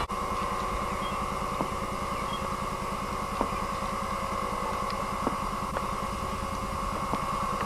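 Steady low hum and hiss with a constant mid-pitched tone, broken by a few faint ticks; no bird call is heard.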